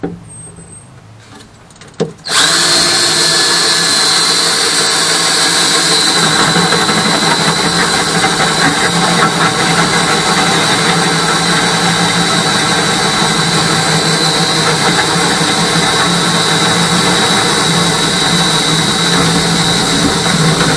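Power drill with a large paddle (spade) bit starting about two seconds in and running steadily, boring a hole through wood, with a steady high whine.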